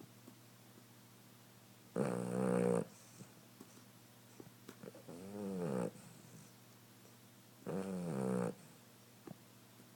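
Puppy snoring in its sleep: three snores about three seconds apart, each under a second long, the middle one rising and then falling in pitch.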